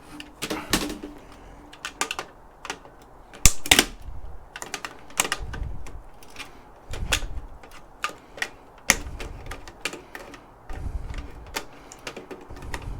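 Irregular sharp metallic clicks and knocks, with a few duller thumps, from tools working at the steel frame of a server chassis.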